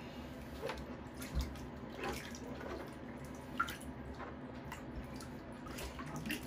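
Bathwater in a plastic infant tub splashing and dripping in small, irregular bursts as a hand washes a baby.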